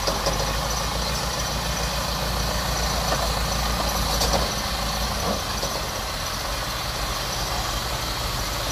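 Engine of a small tracked rice-hauling carrier running steadily.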